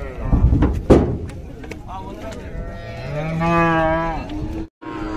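Heavy thumps in the first second, then a cow lowing: one long, low moo about three seconds in that lasts over a second and sags in pitch at the end.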